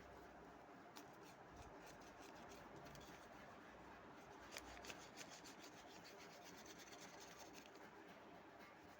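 Faint rubbing and crackling of paper being folded and creased by hand, with a run of quick small crackles from about halfway through.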